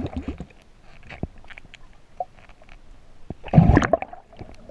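Water sloshing and gurgling, heard underwater, with scattered clicks and knocks. A louder burst of churning water comes about three and a half seconds in.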